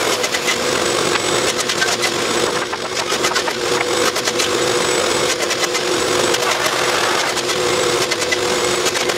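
Wooden stakes clattering and knocking together as they are handled and stacked, many short sharp knocks, over a steady hum of workshop machinery running.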